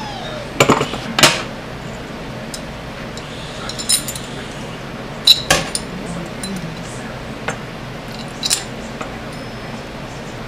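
Metal clinking and tapping as a chrome faucet escutcheon and faucet stem are handled against a stainless steel sink: a handful of sharp clinks a second or more apart, the loudest about halfway through.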